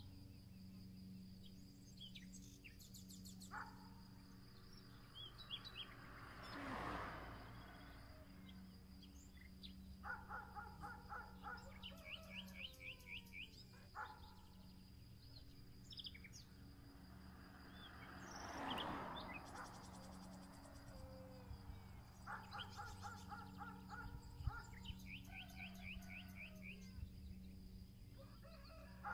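Small songbirds chirping and singing short repeated trills, over a faint low steady hum. Twice a soft whooshing swell rises and fades over about two seconds.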